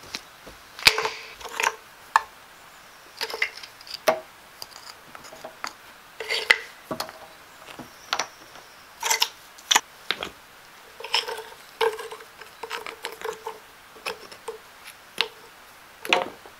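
Flat stone slabs and broken stone pieces clinking and knocking against each other as they are handled and set in place. The knocks come irregularly, about one or two a second, some with a short ringing clink.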